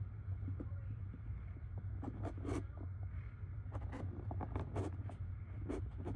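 Scattered short scrapes and clicks of things being handled, over a steady low hum.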